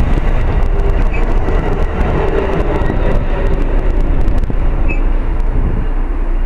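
Stainless-steel Amfleet passenger cars of an ACS-64-hauled electric train running past at speed, a steady rumble and hiss of wheels on rail with light clicks. The noise thins about four seconds in as the last car clears and the train moves away.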